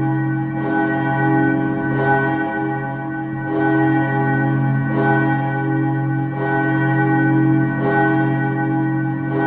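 A steel church bell swinging, its clapper striking about every one and a half seconds. Each stroke rings out over a deep hum that carries on between strikes.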